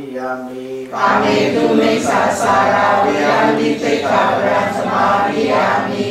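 A monk chanting alone with steady held tones. About a second in, many voices take up the chant together, louder and fuller, repeating after him in call-and-response until near the end.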